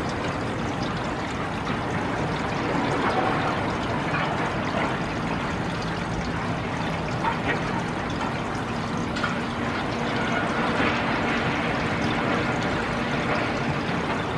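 A demolition excavator breaking down a brick building: a steady rush of crumbling masonry and debris with scattered cracks and knocks, and the machine's engine droning underneath.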